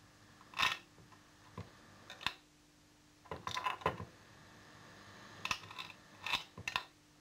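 Tortillas being cut by hand into small heart-shaped chips: a series of short, separate crisp cuts, some coming in quick pairs, over a faint steady hum.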